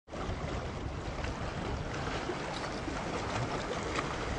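Bay water washing and splashing over shoreline rocks in a steady rush, with wind buffeting the microphone in a low rumble.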